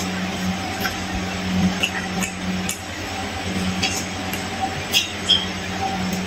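A person eating fried fish by hand: fingers picking at the flesh and mouth sounds of chewing, with short clicks and smacks every second or so, over a steady low hum.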